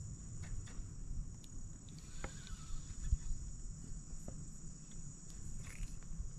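Steady high-pitched chorus of insects, over a low rumble and a few faint clicks.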